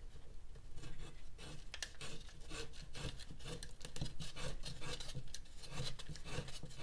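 Calf leather lace being drawn through the holes of a dried gourd's rim and under the braid, a run of irregular scratchy rubbing and scraping against the hard shell.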